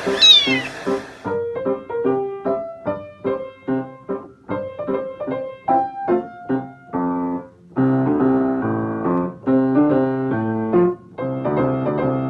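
Background piano music with a steady run of notes, and a kitten's single short meow falling in pitch near the start.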